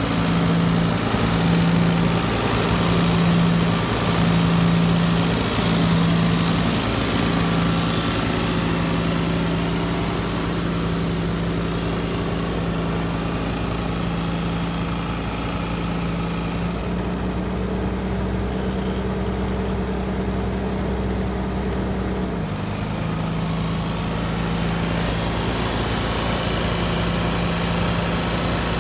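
1960 Allis-Chalmers D14's four-cylinder gas engine running steadily at low speed, with a slow, regular pulsing beat over the first several seconds. Its pitch rises slightly about two-thirds of the way through and drops back about five seconds later.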